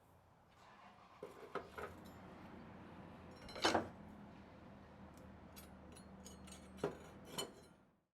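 A few scattered metallic clinks and knocks over a steady low hum. The loudest comes about three and a half seconds in, with smaller ones just before and near the end, then the sound cuts off.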